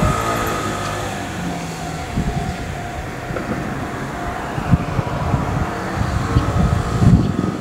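Wind gusting and rumbling on the microphone outdoors, over a faint steady hum of distant traffic or machinery.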